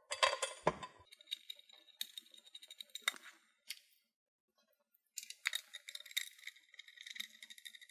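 Bolts, washers and hand tools clinking and rattling against a metal wall bracket as a bolt, lock washer and washer are fitted. A burst of clatter comes at the start, and a run of rapid metallic clicks fills the last few seconds.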